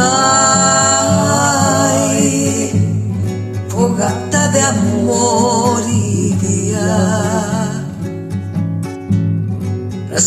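A solo voice sings long held notes with wide vibrato and no clear words, in three phrases, over a steady acoustic guitar accompaniment.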